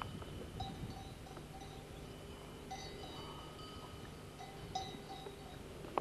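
Metal livestock bells clanking irregularly as the animals graze and move, a few short rings at a time, over a low rumble of wind and camera noise.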